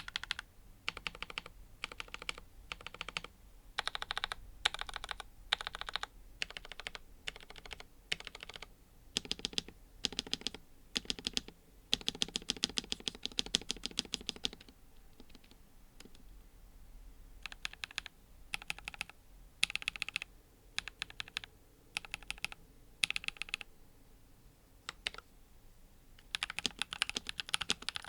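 Typing on a NuPhy Halo-series mechanical keyboard: bursts of rapid keystroke clacks separated by short pauses, with a longer unbroken run of typing about halfway through.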